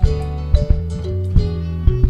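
Background music with held bass notes, a melody of pitched notes and a beat.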